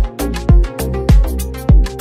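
Electronic dance music: a deep kick drum that drops in pitch on each hit, about every 0.6 seconds, under sustained synth chords and crisp hi-hat strokes between the kicks.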